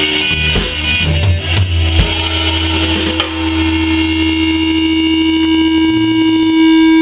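Live band of guitar, bass guitar and drum kit playing rock, with drum hits for the first couple of seconds, then a hard hit about two seconds in and a held guitar-and-bass chord that rings on, swelling slightly louder near the end.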